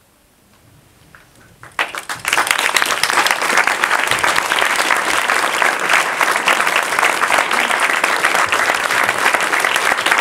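Audience applause breaking out about two seconds in, then continuing as steady, dense clapping.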